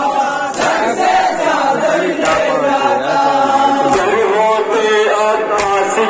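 Men chanting a Muharram noha together, led over a microphone, with the crowd's hands striking their chests in unison in matam about once every second and a half, four strokes in all.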